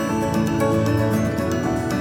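Background music: soft, sustained instrumental notes.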